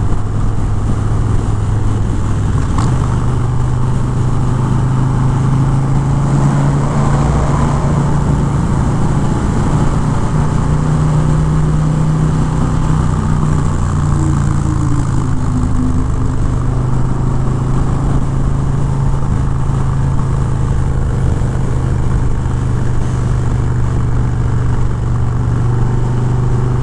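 Harley-Davidson Fat Bob 114's V-twin engine running at highway cruising speed, heard from the rider's seat, its note rising about three seconds in and then holding steady, with steady wind rush over it.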